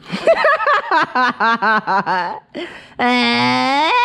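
A man's voice crying out in short, rapid pulses, then a long, loud wail that rises in pitch about three seconds in: his reaction to the burn of a hot chili pepper he has just bitten.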